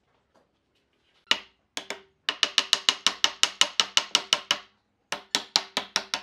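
Rapid knocks of wood on wood as a wooden block taps the stretcher into its joint with the curved wooden legs. A couple of single knocks come first, then a fast run of about seven a second, a short pause, and a second run. Each knock rings with the same hollow wooden note from the frame.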